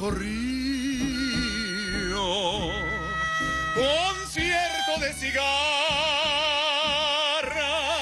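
A man singing in a full, operatic voice with wide vibrato, accompanied by cello, violin, double bass and plucked strings. He sings short phrases at first, then holds one long note through the second half.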